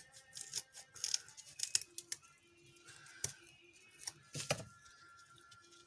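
Hard mantis shrimp shells crackling as they are snipped open along the sides: a scattering of sharp clicks and crunches, the loudest about four and a half seconds in.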